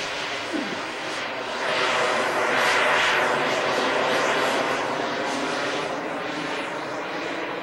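The engine and propeller of a radio-controlled model airplane, running steadily at high speed as it flies past. It grows louder a couple of seconds in as the plane passes close, then slowly fades as it pulls away.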